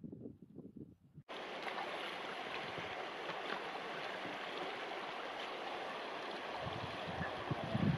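Shallow, rocky river flowing and babbling steadily, starting abruptly about a second in, after faint wind noise. Low irregular thumps join in near the end.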